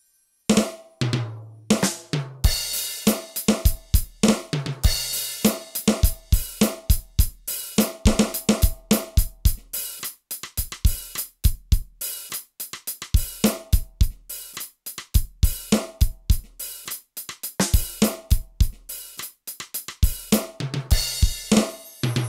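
Roland TD-8 electronic drum kit played in a steady groove of kick, snare, hi-hat and cymbals, starting about half a second in, with a fill of low pitched hits near the start and again near the end.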